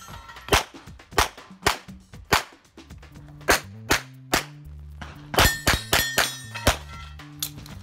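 Rapid pistol fire from a Canik TP9 SFx 9mm pistol, about a dozen shots in uneven groups of two and three, with a short pause about three seconds in.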